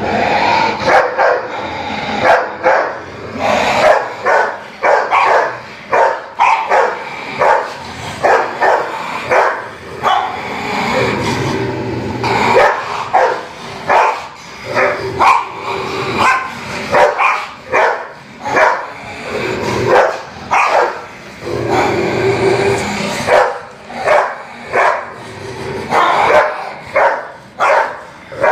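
A Pakistani bully kutta and another dog barking at each other, sharp barks about once or twice a second, over and over with only brief gaps.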